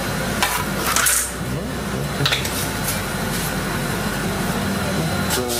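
Steady low mechanical hum, with a few brief clicks about half a second, one second and two seconds in.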